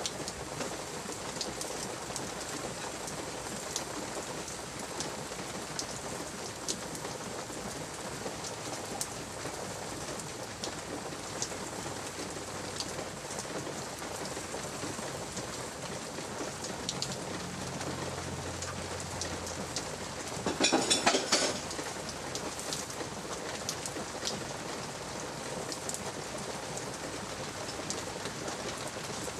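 Steady light rain, with scattered sharp drips. A brief, louder rattle about two-thirds of the way through.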